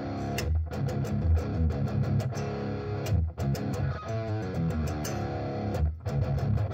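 Squier Jaguar electric guitar with Seymour Duncan humbucking pickups, volume and tone knobs all the way up, played as picked notes and chords in phrases broken by a few short pauses.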